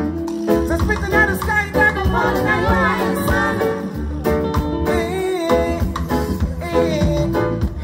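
Live reggae band with bass, drums and electric guitar, and a male singer's vocal over the stage PA.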